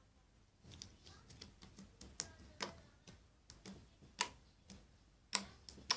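Sticky honey slime being handled, giving an irregular string of small wet clicks and pops, the loudest pop just after five seconds in.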